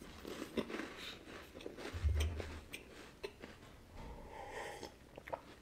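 Faint mouth sounds of chewing a wafer with the mouth closed, small clicks and breaths through the nose, then a short spell of sipping and swallowing from a glass mug about four seconds in.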